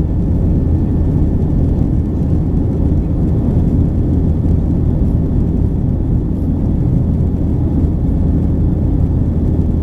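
Cabin noise inside a Boeing 737-800 in flight, heard from a window seat over the wing: a steady low rumble of its CFM56 jet engines and the airflow.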